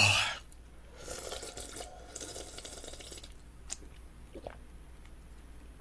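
Slurping and sipping the last of the cold naengmyeon broth straight from the bowl, in two short stretches, with a few small clicks afterward. It opens with the tail of a loud breathy exhale.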